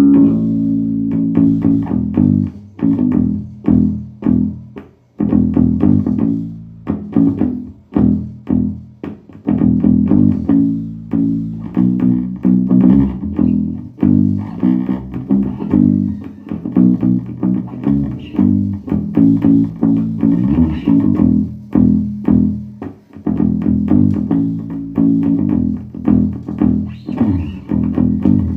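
Electric bass guitar played through a Peavey MaxBass 110 combo amp, a run of plucked notes and short phrases, being sound-tested after repair of its power supply, preamp and class D amplifier chip.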